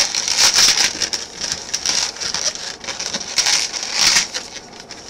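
Latex twisting balloon rubbing and creaking under the hands as a small bubble is twisted into a pinch twist, in irregular crackly bursts.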